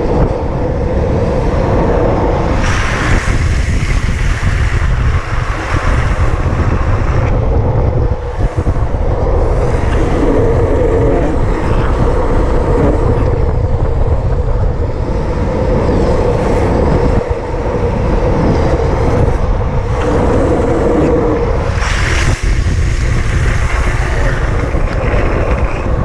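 Loud, steady wind noise on a camera microphone moving at high speed, with the rolling rumble of longboard wheels on asphalt. The noise grows louder and hissier for a few seconds a few seconds in and again near the end.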